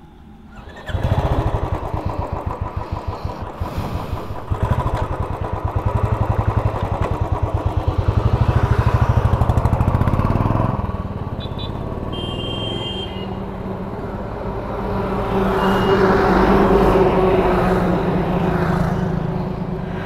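Motorcycle engine starting about a second in and running close by with an even, rapid firing beat; after the middle it runs smoother and swells again near the end.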